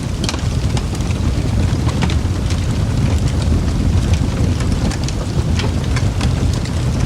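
Wood fire crackling in a fireplace: irregular sharp pops and crackles over a steady low rumble.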